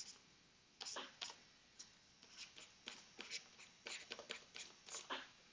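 Faint, irregular short ticks and scratches of a stylus writing on a tablet screen.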